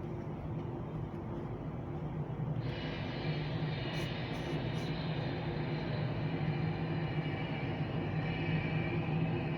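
Airbus A320 jet engines running with a steady low rumble. About a quarter of the way in, a high multi-toned turbine whine cuts in and holds, growing slightly louder.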